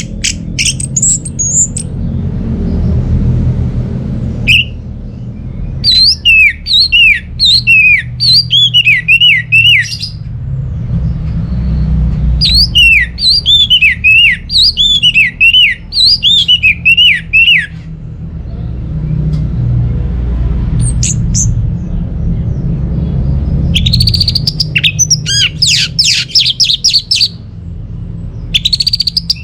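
Orange-headed thrush singing: two long runs of rapid, repeated sweeping whistled notes, each about four seconds, then a denser burst of fast notes near the end, over a low rumble.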